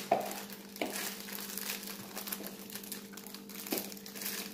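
Crinkling of plastic Oreo snack-pack wrappers being torn and peeled open by hand, with a few sharper crackles.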